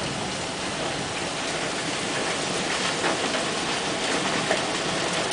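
Heavy rain pouring down in a steady, dense hiss during a severe thunderstorm.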